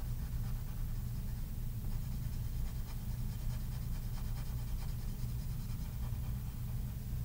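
Pencil shading on paper: quick, repeated back-and-forth scratching strokes filling in a square, over a steady low hum.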